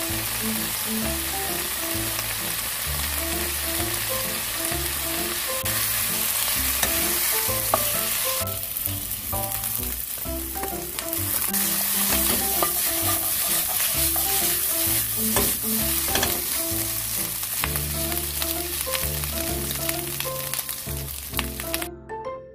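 Blanched julienned potato strips, later joined by ham strips, sizzling in oil in a frying pan as they are stir-fried, with scattered spatula scrapes against the pan in the second half. Light background music plays underneath.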